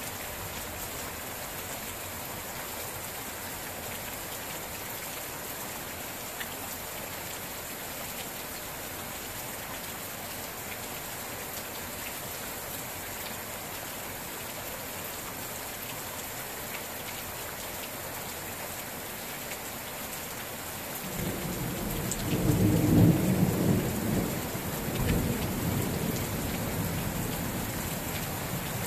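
Steady rain falling. About three-quarters of the way through, a low rumble of thunder builds up, peaks, rolls again a couple of seconds later and slowly dies away under the rain.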